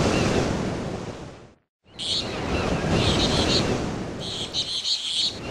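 Surf washing in swells, with birds chirping in short repeated bursts over it. The sound drops out completely for a moment about a second and a half in, then comes back.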